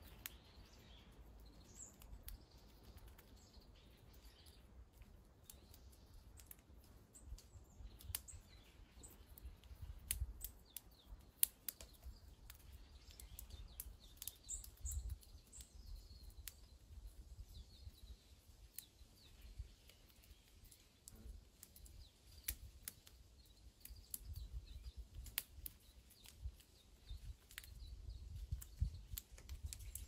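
Squirrel gnawing a nut held in its paws: faint, irregular crisp clicks and cracks of teeth on shell. Faint bird chirps go on behind, and a low rumble grows near the end.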